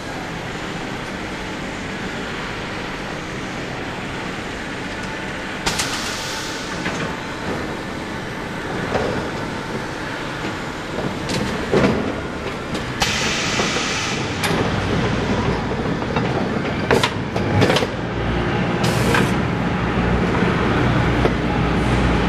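Automated tote-handling machinery running: a compact lift and motorised roller conveyors carrying plastic crates, with a steady mechanical hum and rattle. Short hissing spells come about 6 s in, from 13 to 14.5 s and near 19 s, with a few sharp knocks around 12 s and 17 s. The low rumble grows heavier in the second half as the crates roll out on the conveyor.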